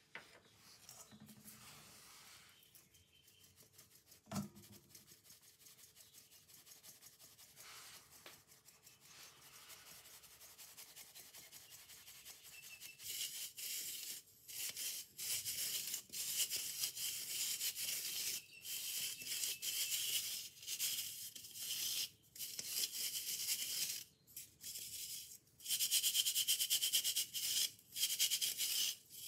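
Cake flour being sifted through a stainless steel drum sieve into a steel bowl. Hands rub the flour against the mesh with a soft scratchy hiss, and about halfway through it grows louder into uneven bursts of shaking and rubbing. There is a single knock near the start.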